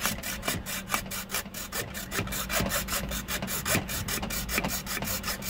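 Stanley hacksaw cutting through the corner of a Qualcomm mount plate in quick, even back-and-forth strokes, about four to five a second.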